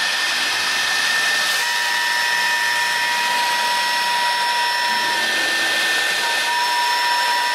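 High-speed spindle of a 4-axis CNC router running with a steady high whine over a broad hiss as its side-mounted bit drills into the side of a block. A second, lower steady whine comes in about one and a half seconds in.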